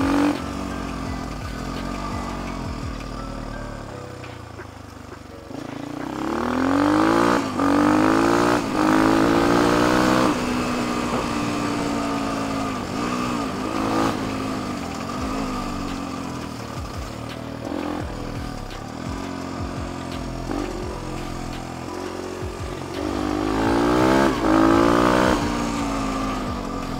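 Kayo K6 motard's 250 cc single-cylinder fuel-injected engine under way. About six seconds in it pulls hard, revs climbing in several steps, then eases back to steadier running. It pulls hard again near the end.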